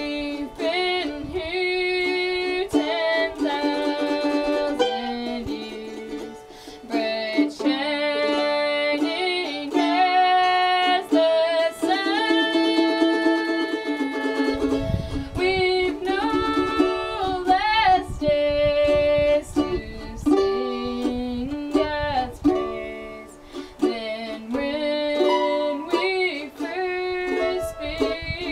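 A girl singing, accompanied by a plucked mandolin.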